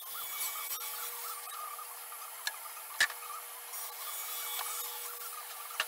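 Table saw cutting a sheet of plywood: a steady hiss with a faint constant whine, and a few sharp clicks about halfway through and again near the end.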